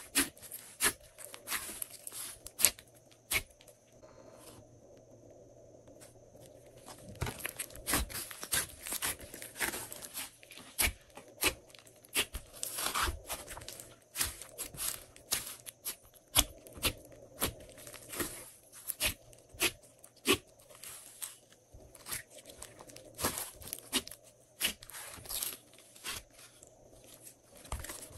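Slime being squished and worked by hand, giving irregular sharp clicks and pops, with a quieter spell about four to seven seconds in.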